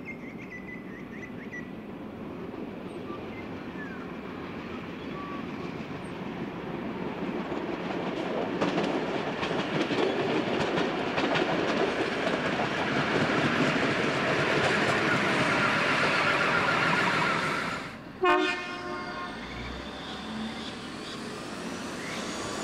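Endeavour diesel railcar approaching and passing close by, its diesel engine and wheels steadily growing louder, with the clicks of wheels over rail joints. About eighteen seconds in the sound breaks off, and a train horn sounds once, briefly.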